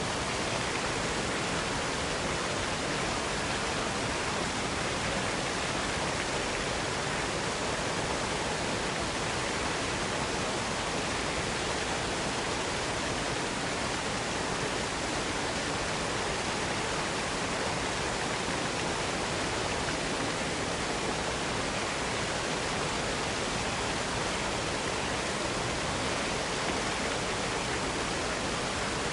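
Waterfall pouring onto a stone bridge: a steady, unbroken rush of falling water.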